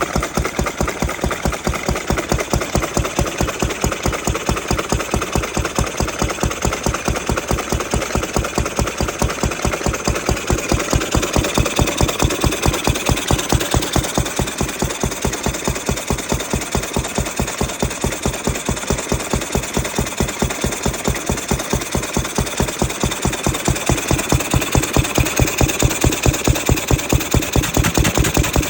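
Ruston 6PS stationary petrol engine running steadily with an even, rapid beat of firing strokes, rattling the trolley it sits on. It grows slightly louder around the middle and again near the end.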